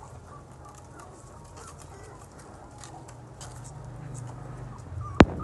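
Faint background clucking of chickens over a low steady rumble, with one sharp click near the end.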